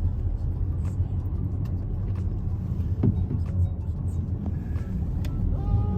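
Steady low rumble of a car's engine and tyres heard from inside the cabin while driving slowly on snowy roads.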